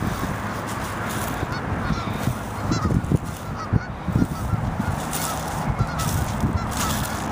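A flock of geese honking, many calls overlapping without a break.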